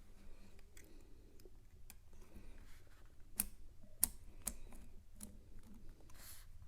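Small mechanical clicks and ticks from the Argos II adding machine's mechanism as it is worked by hand, with three sharper clicks in the middle and a brief rustle near the end.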